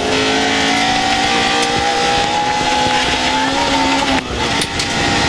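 Rally car engine pulling hard under full load, its pitch rising slowly as it accelerates, with a brief drop about four seconds in before it pulls again.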